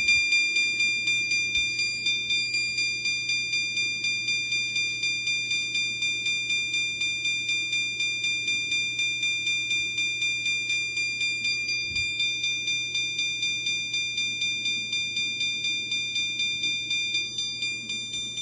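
System Sensor chime strobe sounding a continuous chime, measured at about 102 decibels. A single high tone is struck over and over, about three to four strokes a second, each stroke fading quickly before the next.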